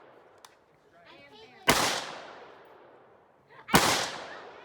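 Two gunshots about two seconds apart, each sharp crack followed by a long echoing decay.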